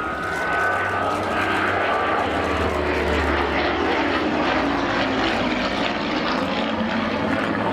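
Fixed-wing aircraft engine running steadily as the aircraft flies past, with a high whine in the first couple of seconds over a constant rumble.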